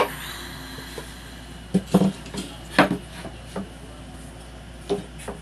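Metal parts and tools clinking and clattering as they are handled on a workbench: about six separate sharp knocks, a few close together around two to three seconds in and more near the end.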